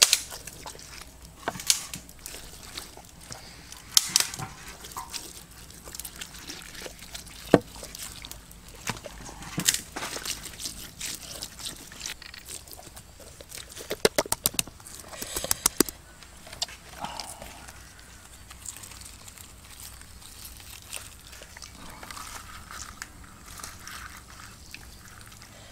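Wet squelching and smearing of hands rubbing chili-garlic paste into whole raw fish, with scattered sharp clicks and crackles. The handling is busiest about two-thirds of the way through and eases off near the end.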